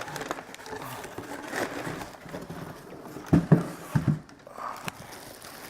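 Handling of a cardboard box: rustling, with a few quick hollow knocks about three to four seconds in.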